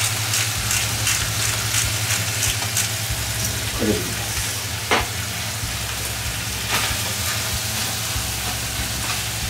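Pieces of smoked chicken sizzling steadily in a frying pan as they are seared to brown the surface, stirred with a wooden spatula, with a few sharp clicks along the way.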